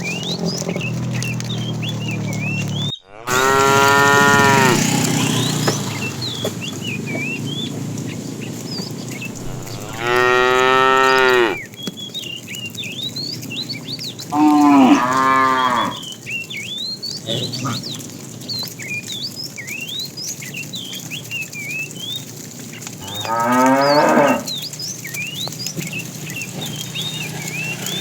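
Cattle mooing: four long, drawn-out moos spaced several seconds apart, with small birds chirping throughout.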